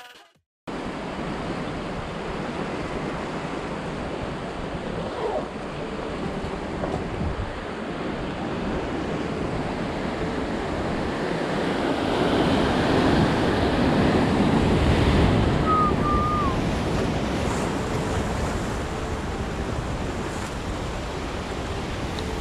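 Ocean surf breaking and washing on a rocky shore in a heavy swell, with wind buffeting the microphone. The wash builds to a louder surge a little past the middle, then eases.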